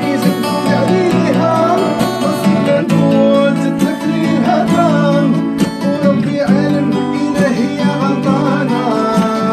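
Live guitar music: strummed chords and a plucked melodic line, played on without a break.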